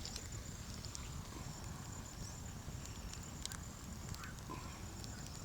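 Outdoor ambience: a steady low rumble, a faint steady high-pitched whine, and a few scattered sharp clicks at irregular moments.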